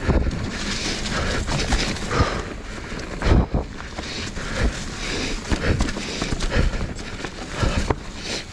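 Commencal Meta HT hardtail mountain bike rolling over rock, its tyres and frame giving a run of uneven knocks and clatters, the loudest about three seconds in, over steady wind noise on the microphone.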